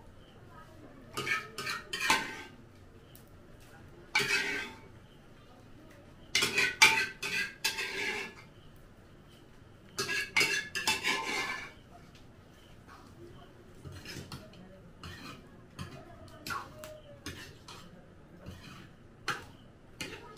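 A metal spoon scraping and clanking against a metal cooking pan as food is stirred over a wood fire. It comes in four bursts of rapid clatter in the first twelve seconds, then turns to lighter, scattered taps.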